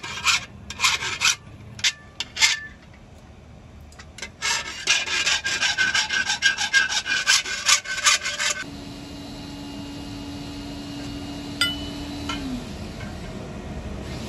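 Hand file rasping across the metal edge of a kasi (spade) blade braced on an anvil block: a few separate strokes, a short pause, then a fast run of strokes for about four seconds. The filing stops about two-thirds of the way through. A steady low hum then takes over and drops in pitch near the end, with one light metal clink.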